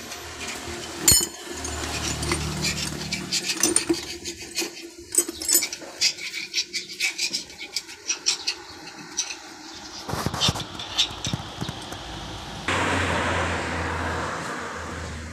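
Hand tools and steel parts clinking and tapping during work on a truck trailer's axle hub, with two louder knocks about ten seconds in. Near the end the sound changes suddenly to a steady rushing noise with a low hum that slowly fades.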